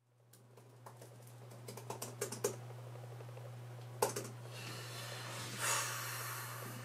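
Laptop keyboard keys clicking as someone types in short runs, with one louder click about four seconds in and a soft rush of noise near the end, over a steady low hum.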